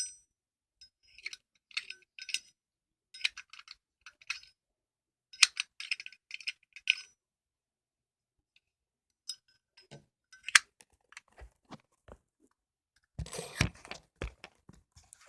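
Zippo lighter lids flipped open and snapped shut over and over: groups of sharp metallic clicks and clinks with a short ring. Near the end comes a louder, busier stretch of metal clatter.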